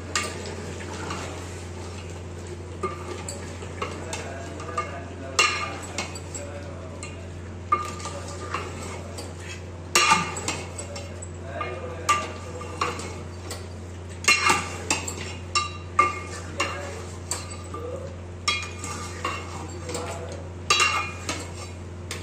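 Long metal ladle stirring a thick meat curry in a large aluminium pot, scraping and clanking against the pot's sides at irregular intervals. A steady low hum runs underneath.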